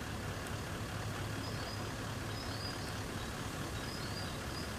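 Toyota LandCruiser 76 Series' V8 turbo-diesel engine running steadily at low revs as the truck crawls slowly over rough dirt track, with faint high chirps above it.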